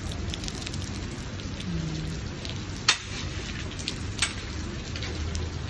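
Heavy rain falling steadily, with close drops ticking and two sharper taps about three and four seconds in.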